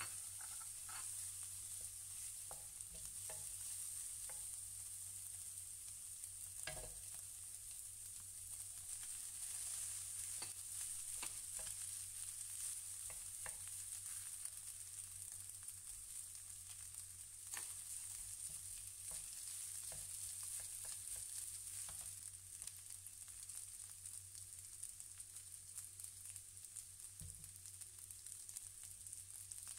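Fried rice with carrot, prawns and egg sizzling steadily in a non-stick frying pan. A wooden spatula scrapes and taps the pan now and then, giving short clicks.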